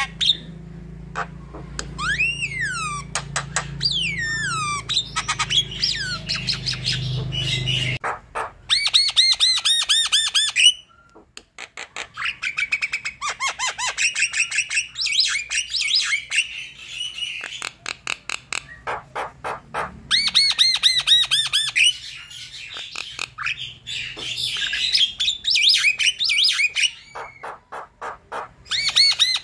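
Javan myna in full song: fast runs of harsh, chattering notes mixed with downward-sliding whistles, broken by short pauses. A low hum sits under the first several seconds and stops abruptly about eight seconds in.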